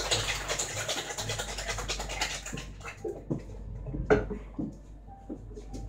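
Cocktail shaker being shaken hard with ice, a dense rattle that stops abruptly about two and a half seconds in. A few separate knocks and clinks follow as things are set down on the bar top, the loudest about four seconds in.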